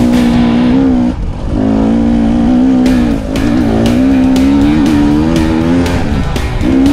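Dirt bike engine running hard on a rocky trail, its pitch wavering with the throttle, easing off briefly about a second in and again around three seconds in.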